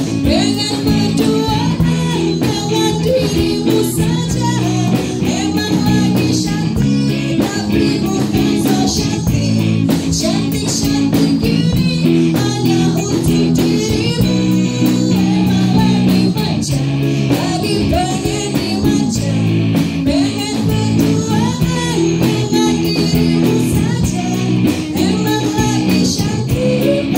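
Live band playing a pop medley: a woman singing into a handheld microphone over electric guitar and drum kit, with a steady beat.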